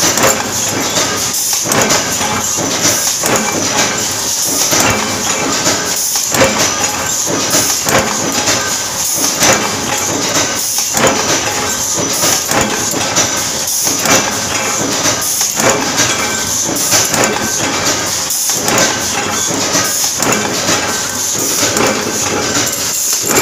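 Power-press machinery in a sheet-metal stamping shop running with a loud, continuous clatter, full of irregular metallic knocks and clinks.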